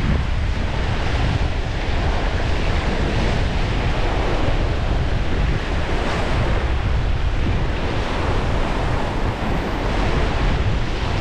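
Strong wind buffeting the microphone: a steady rushing noise with a heavy low rumble.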